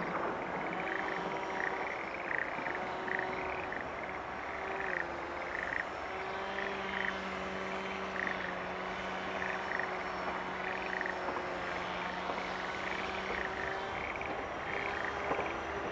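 A chorus of frogs calling in short pulsed notes, about two a second. Underneath runs a low steady engine drone that dips slightly in pitch about five seconds in.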